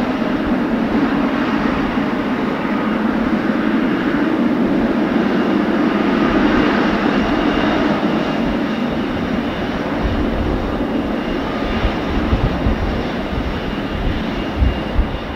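Boeing 777F freighter's GE90 jet engines running at taxi power, a steady rushing hum with a faint high whine over it. Uneven low rumbles come and go in the last third.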